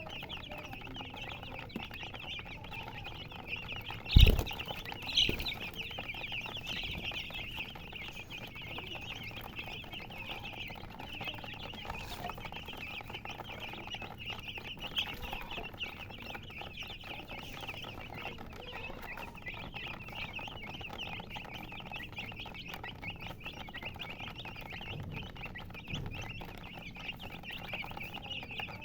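A brood of baby chicks peeping continuously, many high chirps overlapping. A loud thump about four seconds in, and a smaller one a second later.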